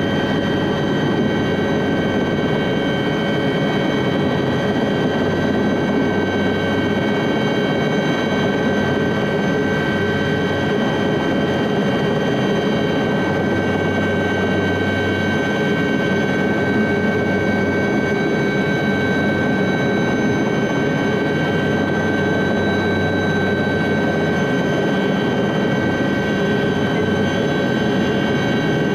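SA315B Lama helicopter's Artouste turboshaft engine and main rotor running at a steady speed, heard from inside the cockpit. A constant turbine whine made of several steady high tones sits over a low rumble, with no change in level.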